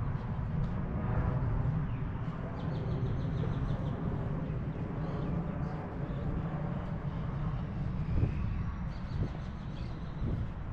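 Urban park ambience: a steady low rumble, with a few faint bird chirps.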